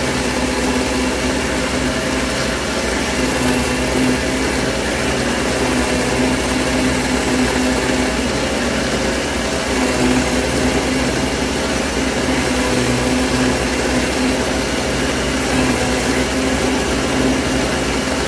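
Taurus 3 diamond ring saw running with a steady hum while its blade cuts through a thick piece of fused dichroic glass held against it.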